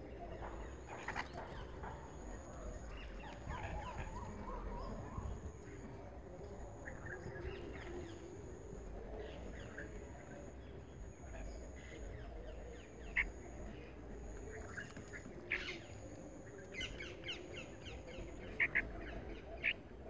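Wild birds calling: scattered short chirps, with a few sharp, louder calls in the last several seconds. Behind them a faint high tone pulses on and off about once a second.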